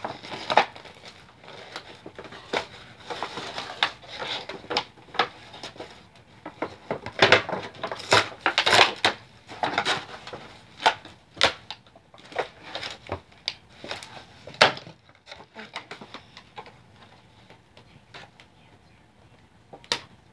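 Plastic toy packaging and a cardboard box being handled and crinkled while scissors cut the ties holding the doll in. It is a busy run of irregular crackles and snaps that thins out for the last few seconds.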